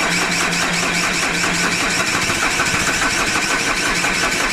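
Starter motor cranking the 2010 Vauxhall Insignia's diesel engine in a steady, even rhythm without it firing. The engine is starved of fuel: little diesel is reaching the cracked-open injector pipes, which turned out to be a lazy fuel pump.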